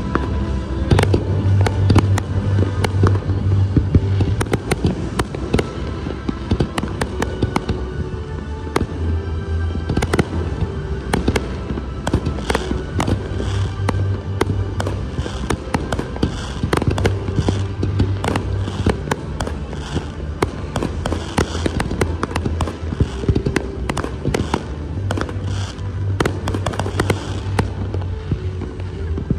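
Aerial fireworks display: shells bursting in quick succession, with many sharp bangs and crackles, over music with a repeating bass line.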